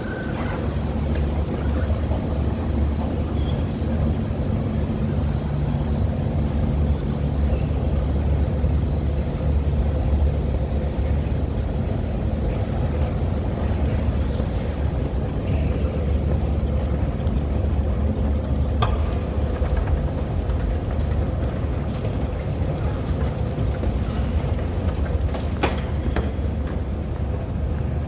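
Escalator running: a steady low rumble with a faint hum, and two sharp clicks in the second half.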